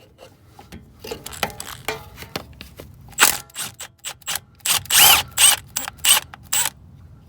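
Ratchet wrench clicking in short bursts as a 10 mm bolt on the wheel speed sensor bracket is worked loose, the loudest runs a little after halfway.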